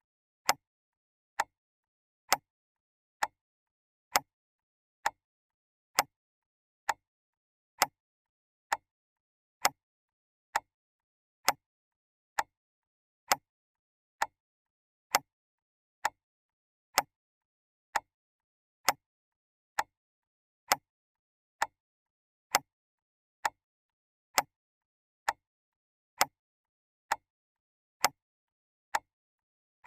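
Clock ticking steadily, a sharp tick a little under a second apart, alternating slightly louder and softer in a tick-tock pattern, with silence between ticks.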